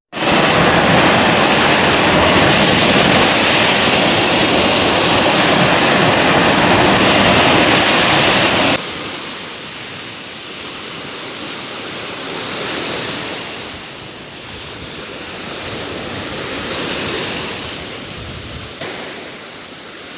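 Sea waves breaking on the shore with wind buffeting the microphone, very loud at first; about nine seconds in it cuts abruptly to quieter, swelling surf.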